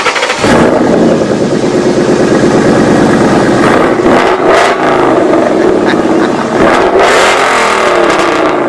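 Coyote-swapped Ford Mustang GT's V8 engine running and being revved, the pitch swinging up and down several times; it comes in suddenly just after the start.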